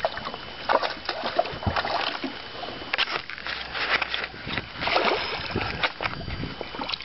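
Water splashing and sloshing as a hooked bass is brought to the surface beside a small fishing boat, with scattered knocks and rustles of handling.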